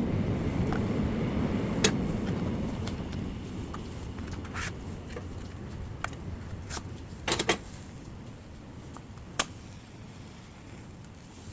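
Dry firewood burning: a low rush of flames that is strongest at first and dies down over the first few seconds, with sharp crackles and pops from the wood, a quick cluster of them about seven seconds in.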